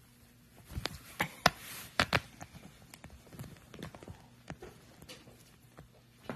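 Irregular soft taps, knocks and rustles of fabric as a blanket and a fuzzy stuffed toy are handled around a kitten, with a short louder rustle about a second and a half in.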